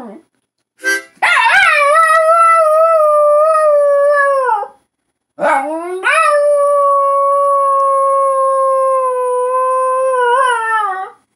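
Terrier howling, prompted by harmonica playing: two long, wavering howls. The second swoops up and is held steady for about five seconds before dropping away.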